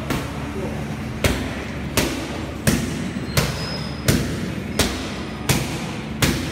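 Muay Thai kicks and punches slapping into a trainer's pads and gloves in a steady pad-work rhythm, eight sharp strikes about 0.7 s apart, the first a little over a second in.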